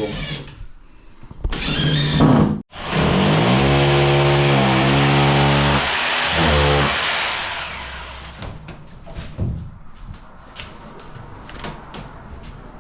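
Electric power drill running under load for about four seconds, its motor pitch stepping up and down, followed by scattered light knocks and taps.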